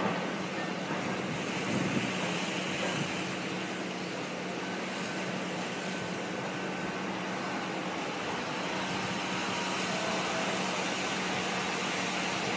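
Steady drone of heavy construction machinery at the seawall drilling works, a constant low hum, over a hiss of wind and surf.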